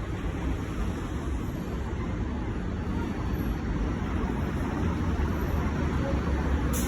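R188 subway train running on the 7 line: a steady rumble of steel wheels on rail and traction motors, with a short click near the end.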